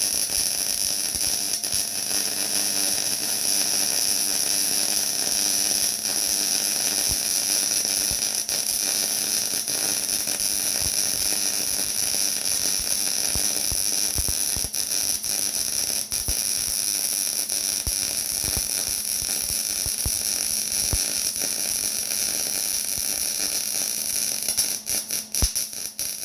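MIG welding arc running one long continuous bead on 5 mm steel plate: a steady crackling hiss that cuts off near the end.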